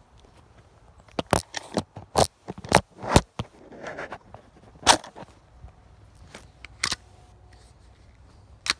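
Branches and dry brush scraping and snapping close to the microphone while pushing through thick undergrowth: a string of irregular sharp cracks and scrapes, densest in the first half, then a few spaced ones.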